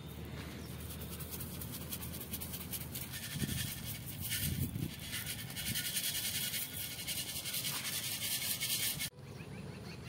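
Rice and wheat grains poured from a tin onto a gravel path, a steady pattering hiss that grows stronger partway through and cuts off suddenly about nine seconds in.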